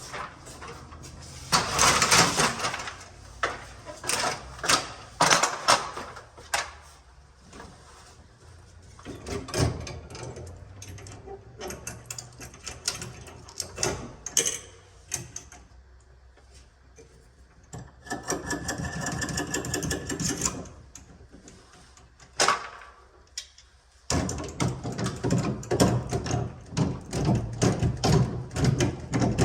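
Installation work on a ceiling-hung heat pump unit: irregular clicks, knocks and clanks of metal hardware being handled. A steady whirring runs for about two seconds past the middle, and a fast mechanical rattle starts near the end.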